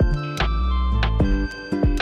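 Background music with a steady beat: a heavy bass line, sustained synth tones and sharp drum hits about twice a second.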